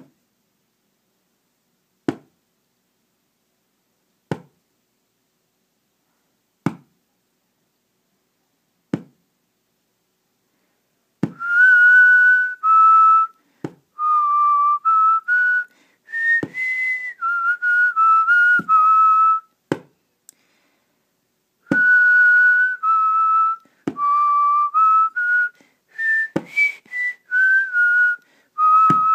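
Sharp taps about every two seconds keep a slow, even beat. About eleven seconds in, a person starts whistling a short tune of held notes over the taps, stops briefly and whistles it again.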